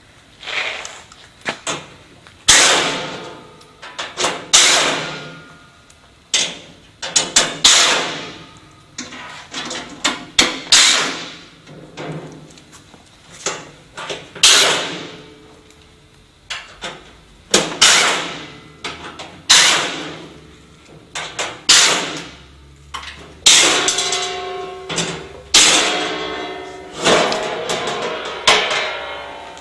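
The sheet-metal side panel of a Snap-on MIG welder being unfastened and worked off the cabinet: repeated irregular metallic knocks, clanks and scrapes. Near the end the panel rings as it comes free.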